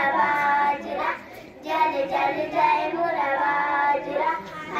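Young girls singing a song, with held notes in two phrases and a short break about a second in.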